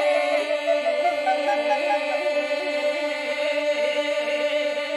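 Several voices singing Greek folk polyphony: moving melodic lines weave over a steady held drone note.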